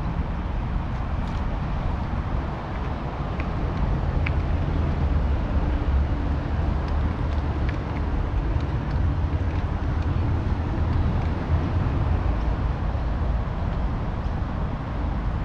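Steady low rumble of riding an electric mountain bike, wind on the microphone with tyre noise, with a few faint short chirps or clicks.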